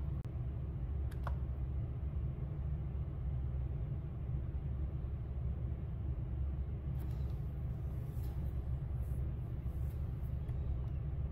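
Steady low background hum of room tone, with a sharp click about a second in.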